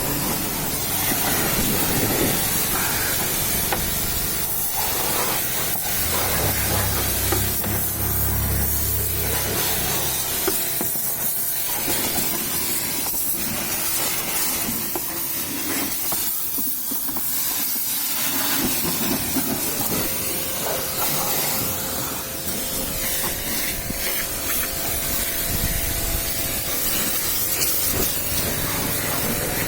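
Water spraying with a steady hiss, as in washing down a vehicle, with a low hum for a few seconds about six seconds in.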